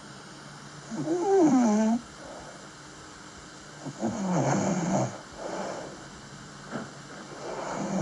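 A sleeping person snoring, one snore about a second long roughly every three seconds. Each snore has a wavering pitch, and a softer breath follows the second one.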